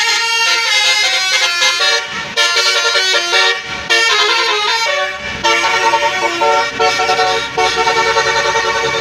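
Bus telolet horn: a multi-tone horn on an intercity bus playing a quick melody of changing notes, broken by two short gaps early on. A bus engine runs underneath in the second half.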